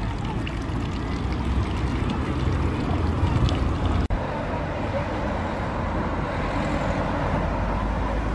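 Outdoor background of a steady low rumble, with faint scattered voices. It breaks off for an instant about four seconds in, then carries on.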